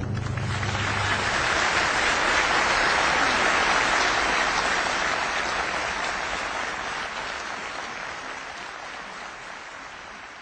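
Applause, a dense even patter of clapping that swells over the first few seconds and then slowly fades out.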